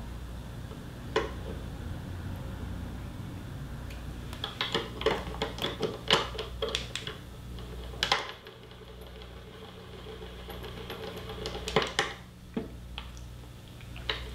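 Scattered small clicks and taps of fly-tying tools being handled, the UV-cure resin bottle and a UV curing light, with a cluster in the middle and a sharper click about eight seconds in, over a steady low hum.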